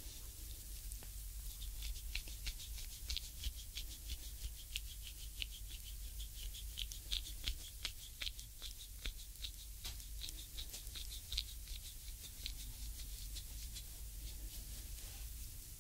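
Reflexology stick grinding into the oiled ball of a bare foot: an irregular stream of small crackling, scratchy clicks, several a second, as the stick works into the sole.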